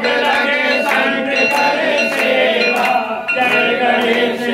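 A crowd of devotees singing a Hindu aarti hymn together, with hand claps and metallic clinks keeping time.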